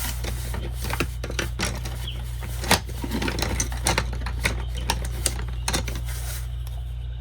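Watercolor pencil scribbling a colour swatch on sketchbook paper: quick, irregular scratching strokes with a few sharp clicks, the loudest about two and a half seconds in, over a steady low hum.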